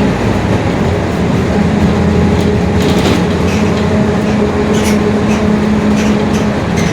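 Mercedes-Benz OF-1721 city bus under way, heard from inside: the diesel engine and driveline run steadily, with a held drone from the growling differential. A few light rattles sound around three and five seconds in.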